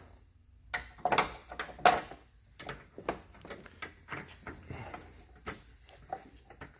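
Scattered clicks, knocks and rustles of hands working a refrigerant hose quick-coupler at a car's AC service port, with a couple of louder knocks about one and two seconds in.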